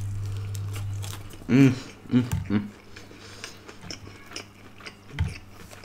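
Close-miked chewing of fried chicken: soft wet mouth sounds and faint clicks, with a few brief vocal murmurs about a second and a half in. A low steady hum fades out about a second in.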